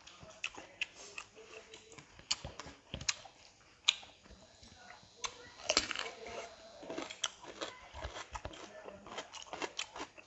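Close-miked eating: crisp bites and crunching of raw cucumber, with chewing and the small wet clicks of eating rice by hand. The clicks come irregularly, with the loudest crunches about 4 and 6 seconds in.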